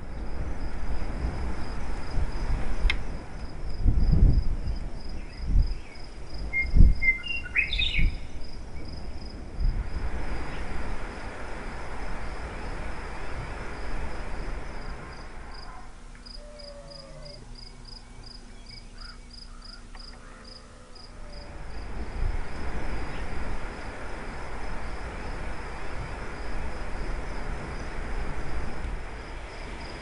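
An insect chirping in a steady, rapid high pulse throughout, over low rustling and soft thumps from American badgers digging and scuffling in dirt and dry grass. A short bird call comes about eight seconds in.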